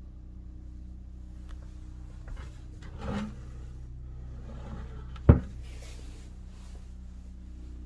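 A steady low hum, with a soft bump about three seconds in and a single sharp knock about five seconds in.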